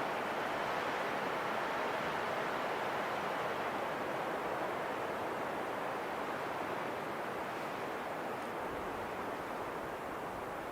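Steady rushing wind, an even hiss without distinct gusts that eases slightly toward the end.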